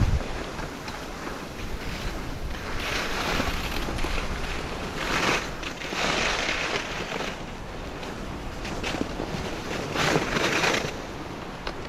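Cross-country skis hissing over hard-packed snow on a downhill run, swelling into louder hissing surges about three times, over the low rumble of wind on the microphone.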